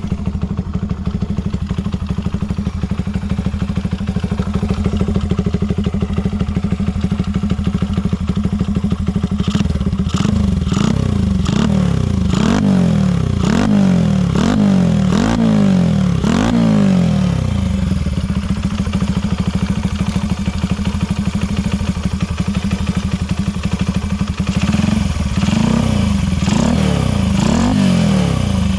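Honda Ape 50 single-cylinder four-stroke engine, bored up with a Takegawa kit and fitted with a short exhaust, idling steadily and then blipped about seven times in quick succession, settling back to idle before three more blips near the end. The seller describes it as running with no abnormal noise.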